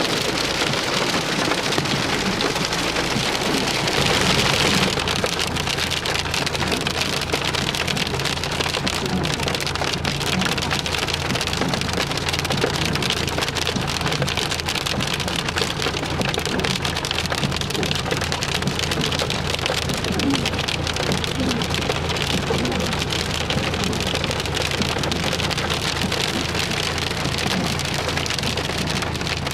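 Hail drumming on a car's roof and body, heard from inside the car: a dense, unbroken rattle of countless small impacts at a steady level, with a low steady hum underneath.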